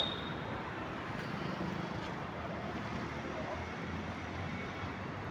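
Steady road traffic noise from vehicles passing.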